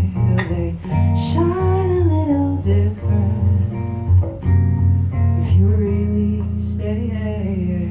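Acoustic guitar strummed in a steady rhythm of chords, with a sung melody gliding above it.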